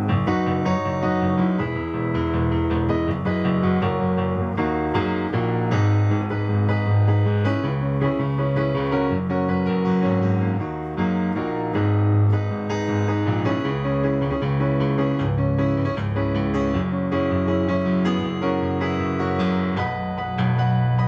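Yamaha CP-80 electric grand piano being played: sustained chords over low bass notes, changing every second or two.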